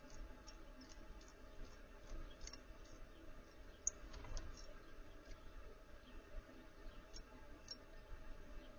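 Small backyard birds making faint, irregular high ticks and chips, with one sharper click about four seconds in.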